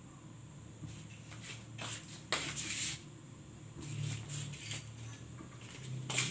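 A covered pot of water heating on a lit gas stove, not yet boiling: a steady low hum with short, irregular hissing noises.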